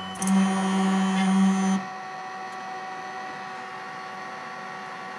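Lulzbot Mini 3D printer's stepper motors whining steadily as it homes and moves the print head at the start of a print, cutting off suddenly about two seconds in. After that only a steady hum remains.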